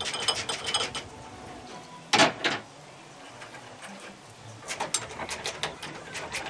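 Ratchet wrench clicking in quick runs as fasteners are undone to remove the helicopter's transmission shaft, with one loud clank about two seconds in.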